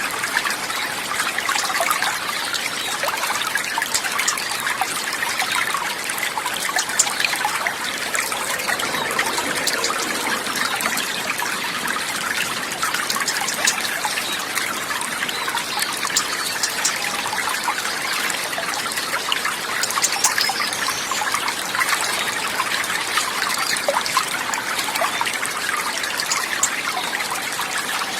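Steady trickling water, a continuous flow dotted with many small splashes and drips.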